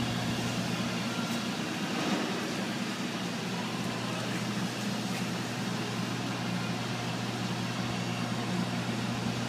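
Steady low mechanical hum with a constant low tone.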